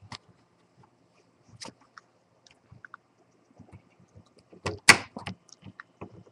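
Small flathead screwdriver working a very tight screw in a Compaq Presario CQ56 laptop's screen assembly: scattered small clicks and scrapes, with louder clicks about five seconds in. The screw is so tight that it nearly strips before it turns.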